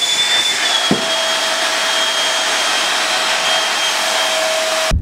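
Prototype Black Diamond JetForce avalanche airbag's electric fan running, a steady rush of air with a high whine as it holds the balloon inflated. The whine dips slightly in pitch under a second in, and the sound cuts off abruptly near the end.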